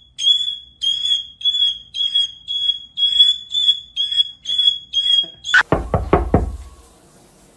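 High-pitched beeping in the manner of a smoke or fire alarm, about two beeps a second over a steady high tone, stopping about five and a half seconds in. A few sharp knocks follow.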